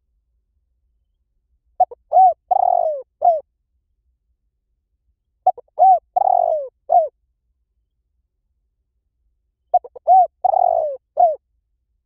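Spotted dove cooing: three alike phrases about four seconds apart, each a couple of short clipped notes, a longer rolling coo and a final short note.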